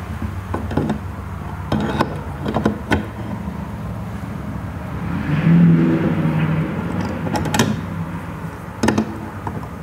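Metal clicks and knocks of an adjustable wrench working a threaded pipe fitting on a water-filter housing: a few sharp taps in small clusters, over a steady low hum. A brief low pitched sound about halfway through is the loudest part.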